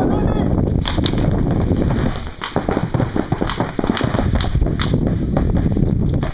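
Paintball markers firing: scattered sharp pops and short quick strings of shots during a speedball game, over a steady rush of background noise.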